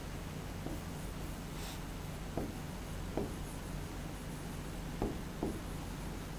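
Marker pen writing on a whiteboard: about five short squeaky strokes as the letters go down, over a steady low hum.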